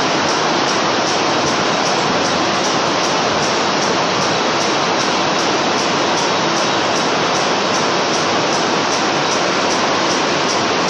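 C12 carding machine running: a steady, even rushing noise of the card at work.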